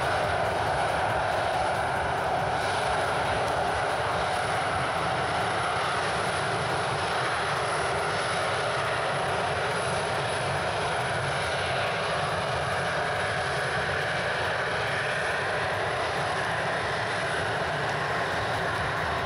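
Boeing 737-300's CFM56-3 turbofan engines running steadily as the airliner rolls along a wet runway: an even jet roar with no rise or fall in loudness.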